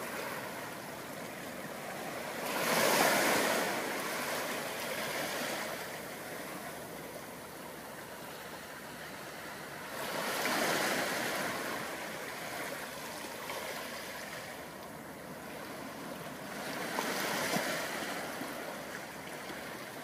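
Small ocean waves breaking softly on a beach, three swells of washing surf about seven seconds apart with a steady hiss of water between them.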